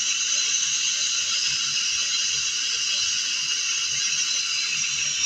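Loud, steady hiss of static played through the speaker of a repaired LA4440 amplifier, with an irregular low crackle underneath.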